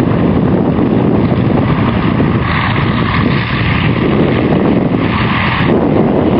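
Loud wind buffeting the camera microphone, a steady low rumble, with hissier gusts coming in about two and a half seconds in and again about five seconds in.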